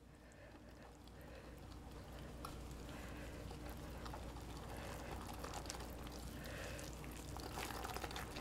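A whisk stirring flour into a wet yeast, butter and egg mixture in a glass bowl, mixing a yeast bread dough. A faint, even mixing noise grows slowly louder, with a few light clicks of the utensil against the glass.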